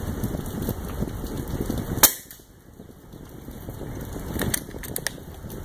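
A single sharp airgun shot about two seconds in, over a steady hiss of rain, followed by a few faint clicks near the end.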